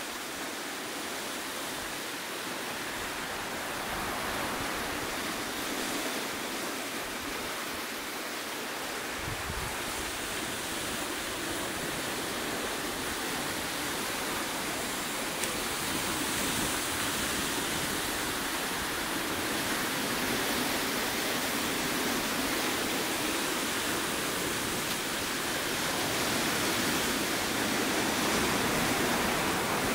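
Ocean surf breaking and washing over rocky ledges: a steady rushing hiss that slowly grows louder toward the end, with a deeper rumble joining about nine seconds in.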